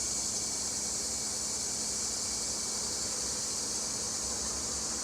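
A steady, high-pitched chorus of insects, an even unbroken hiss that neither rises nor falls.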